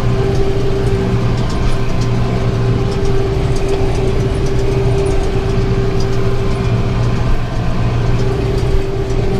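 Tractor engine running steadily with a PTO-driven round baler working behind it, a low engine drone under a constant mid-pitched hum from the driveline.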